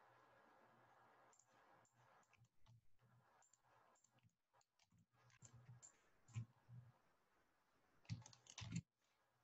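Faint computer keyboard typing and mouse clicks: scattered light clicks, with a quicker, louder cluster near the end.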